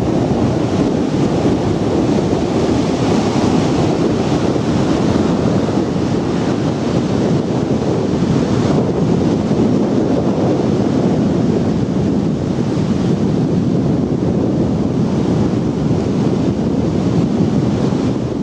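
Surf breaking on a sandy beach mixed with wind blowing across the microphone, a loud, steady rush with no break.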